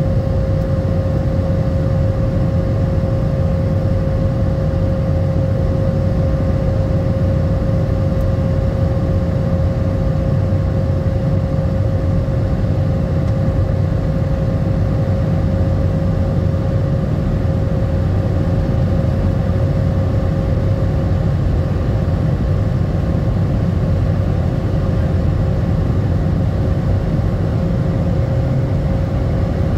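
Jet airliner cabin noise on the approach, heard from a window seat over the wing: a steady, deep rush of engine and airflow noise with a steady tone running through it.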